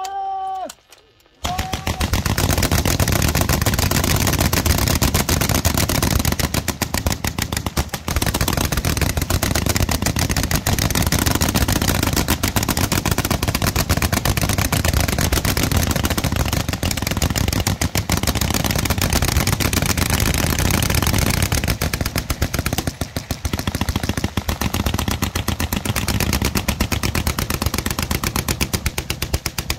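A line of water-cooled .303 Vickers machine guns firing together in one continuous, overlapping stream of automatic fire. It starts about a second and a half in and keeps going, with brief dips near eight and eighteen seconds, until it stops right at the end.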